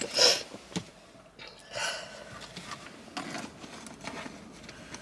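Rummaging in a handbag: short rustles and a few light clicks and clinks of items being moved, twice rising into a brief louder rustle.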